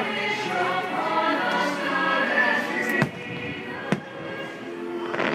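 Fireworks-show soundtrack music with a singing choir, and two sharp firework bangs, about three and four seconds in.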